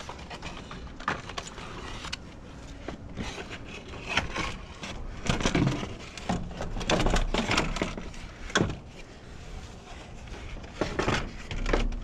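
Plastic cooling fan assembly and shroud being worked into place by hand in an engine bay: irregular clunks, clicks and short scrapes of plastic against the radiator and surrounding parts.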